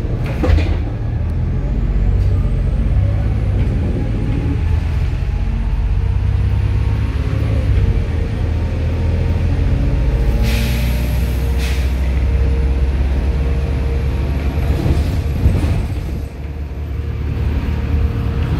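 Bus engine running steadily, heard from inside the passenger cabin as a low drone, with a short hiss of air about ten seconds in.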